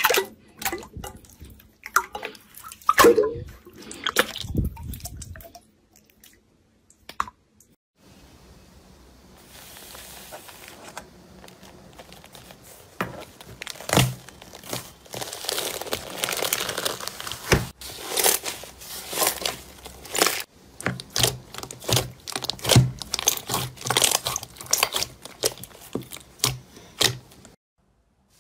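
Slime being squeezed, poked and stretched by hand, giving sticky squishes and dense runs of small pops and crackles. There is a quieter stretch with only a faint hiss in the middle.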